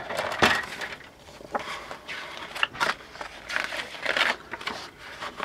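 Paper instruction booklet being handled and lifted from a cardboard model-kit box: irregular rustling swishes with a few sharp clicks and knocks, the sharpest about half a second in.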